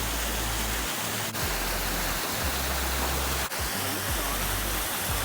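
Waterfall: a steady, dense rush of falling water, with brief dips about a second and three and a half seconds in.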